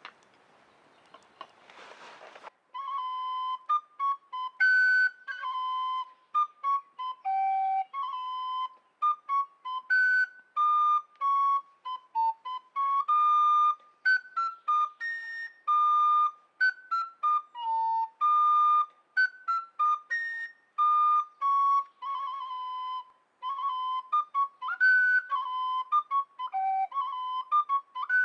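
Background music: a solo flute-like melody of clear, separate notes, starting about two and a half seconds in after a brief faint hiss.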